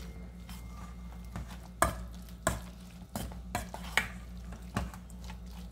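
Metal spoon stirring a moist shredded cabbage, carrot and chicken omelette mixture in a stainless steel bowl, the spoon knocking against the bowl about six times in the second half. A steady low hum runs underneath.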